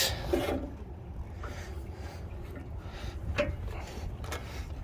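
A few sharp metal clicks and clanks as cants are clamped down on a band sawmill's bed, over a low steady rumble.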